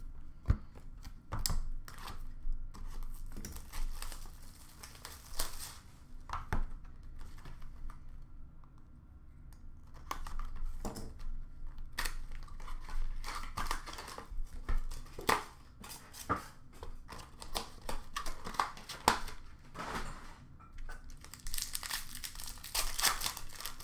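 A box of Upper Deck Trilogy hockey cards and its packs being torn open by hand: tearing of the wrapping and crinkling of the pack wrappers, with sharp clicks and knocks of handling. The crinkling is densest near the end.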